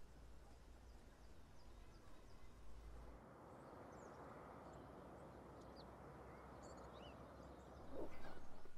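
Faint steady background hiss with a few faint bird chirps scattered through it; near the end a louder run of short sounds begins.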